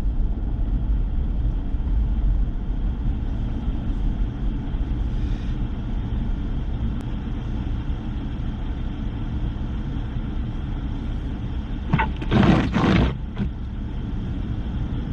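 Steady low rumble of a four-wheel-drive vehicle's engine and tyres on a slushy, snow-covered road, heard from inside the cab, with a brief loud rush of noise near the end.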